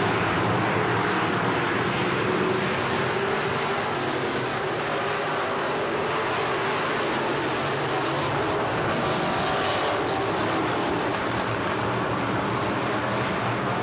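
A pack of factory stock race cars racing around the oval, many engines running together in one steady, dense noise.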